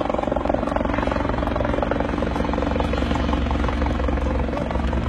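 A helicopter's rotor and engine running steadily, a continuous loud beat with no let-up.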